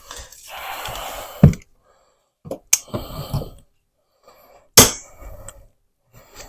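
Locking pliers (vice grips) working a nail out of a plastic wall box in drywall: rasping scrapes of metal and plastic, broken by a few sharp clicks and knocks, the loudest about two-thirds through.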